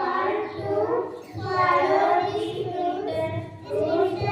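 Children's voices singing together, holding long notes that glide up and down.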